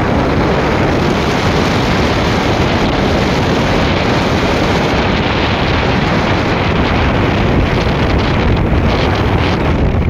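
Steady, loud wind noise buffeting a phone microphone while moving at speed, with no distinct engine note or other event.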